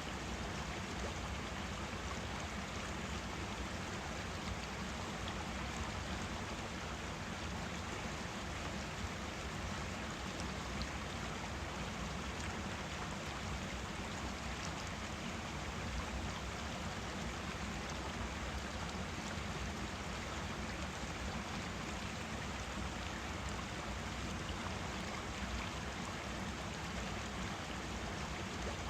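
Forest stream flowing, a steady rush and babble of water over rocks.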